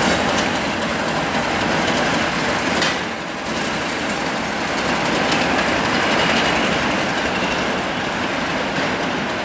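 Four British Rail Class 50 diesel locomotives running coupled together along the track as they draw away, a steady mix of engine and rail noise with some clickety-clack of wheels over rail joints.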